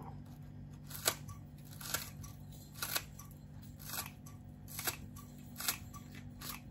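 Kitchen scissors snipping through a Japanese long green onion (negi), a crisp cut about once a second.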